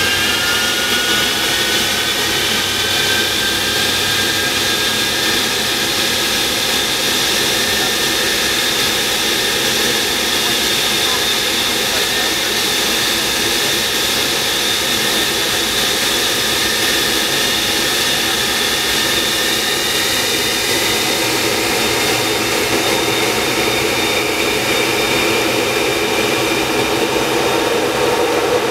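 Avro Vulcan's Rolls-Royce Olympus turbojets run at high power during an engine ground run, heard from inside the cockpit. A loud, steady rush carries several whining tones that climb in pitch over the first few seconds and then hold steady.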